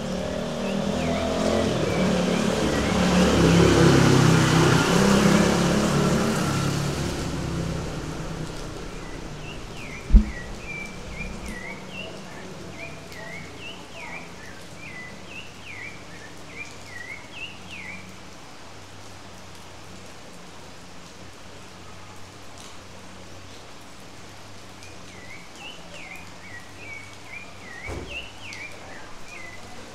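Steady rain falling, with a vehicle passing in the first several seconds, its noise swelling and then fading. A single sharp knock about ten seconds in, then a bird calling in quick repeated chirps, twice.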